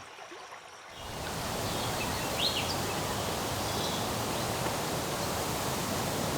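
Outdoor field ambience: a steady hiss of background noise that comes in about a second in, with a few faint, short bird chirps over it.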